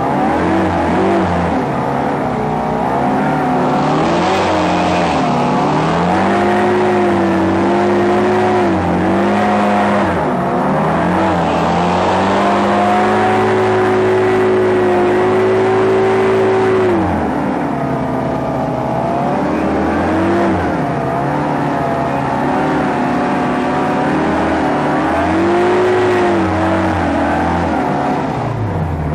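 Small hovercraft engine running loud, recorded on board, its revs rising and falling with the throttle. It is held high for a few seconds in the middle, then drops back and keeps varying.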